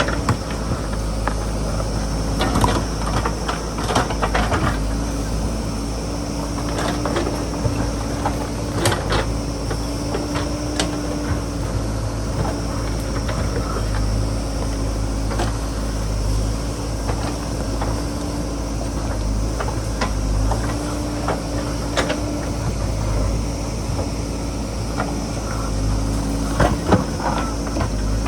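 JCB backhoe loader's diesel engine running steadily as it works, its pitch shifting slightly now and then, with frequent short knocks and clatters throughout.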